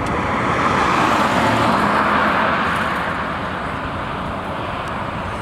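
A road vehicle passing close by: tyre and engine noise swells over the first two seconds or so, then slowly fades away.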